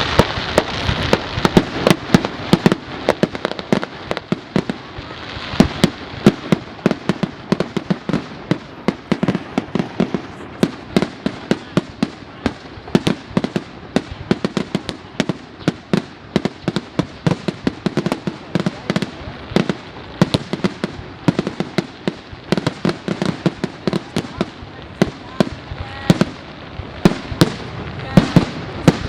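Fireworks display: a rapid, continuous barrage of sharp bangs and crackles.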